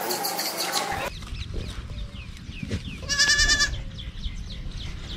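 A goat bleats once, a short high quavering call about three seconds in, with faint short chirps before it.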